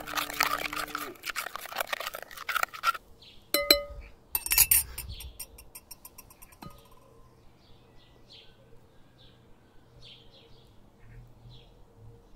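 Metal spoon stirring and scraping quickly against a glass mixing bowl of thin batter, then two sharp ringing clinks of the spoon against the dishes about three and a half and four and a half seconds in. After that it goes quiet apart from faint bird chirps.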